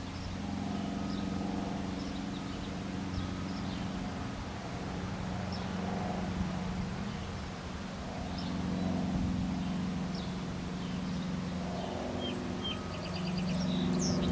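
Small birds chirping in short high notes over the low drone of vehicle traffic, which swells and fades several times as vehicles pass. Near the end the birds give a quick run of higher notes.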